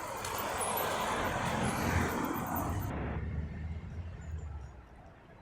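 Road traffic noise, a car passing, which stops abruptly about three seconds in and leaves a quiet background with a few faint bird chirps.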